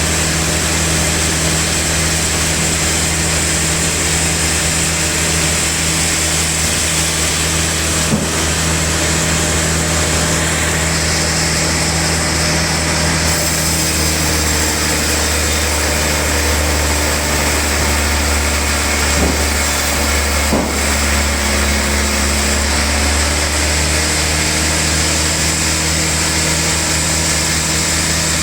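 Sawmill band saw running steadily: a constant machine hum under an even hiss, with a brief knock about eight seconds in and another about twenty seconds in.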